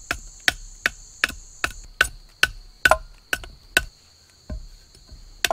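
Machete blade striking and shaving the bark off a short log, stripping it clean: sharp strokes about two and a half a second with a short pause near the end, some leaving a brief metallic ring. Insects drone steadily underneath.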